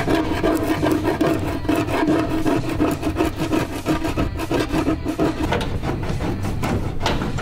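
A hand scraper rasping in repeated quick strokes over a car's cowl panel, scraping off old weatherstrip adhesive and seal residue softened with adhesive remover.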